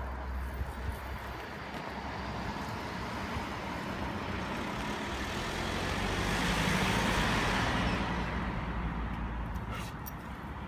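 A van driving past on the street: road noise that builds over several seconds, peaks about two-thirds of the way through, then fades away.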